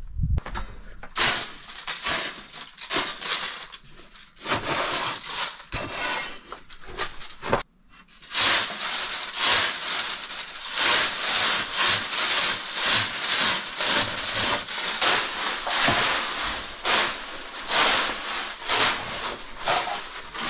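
Rough scraping and brushing strokes, sparse and broken up at first, then after a short break about eight seconds in, a dense run of about two strokes a second.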